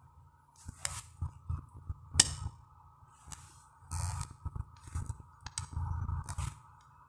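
Fingers tapping and handling a smartphone: irregular sharp clicks and soft knocks, about one a second.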